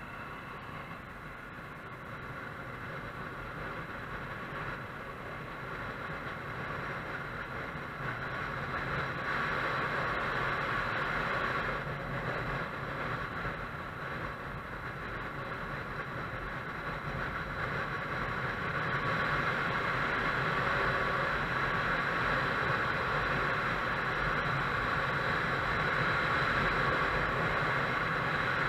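Honda motorcycle on the move: steady wind rush and engine noise, growing louder over the stretch, with a brief dip about halfway.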